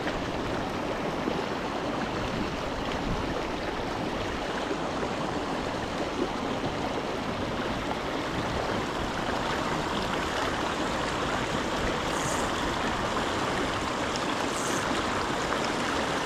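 Small stream rushing and babbling steadily, with two brief faint high-pitched sounds late on.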